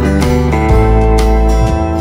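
Background music played on guitar over a bass line, the notes changing every half second or so.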